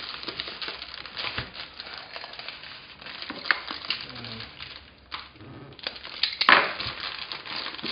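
Plastic courier satchel crinkling and tearing as it is ripped open by hand, with a louder sharp rip about six and a half seconds in.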